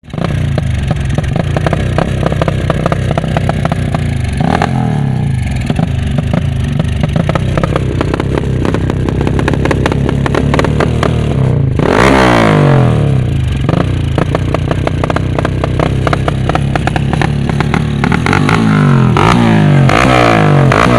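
Honda Tiger's single-cylinder four-stroke motorcycle engine warming up at a steady idle, with a quick throttle blip about twelve seconds in and several short revs near the end.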